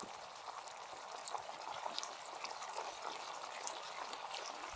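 Chicken curry simmering in an uncovered cast-iron skillet over embers: a faint bubbling hiss with many small pops.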